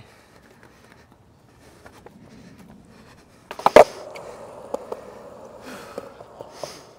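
Skateboard coming down on concrete with a sharp clack about three and a half seconds in, then its wheels rolling over the concrete with a steady hum and a few small clicks as the rider pushes off.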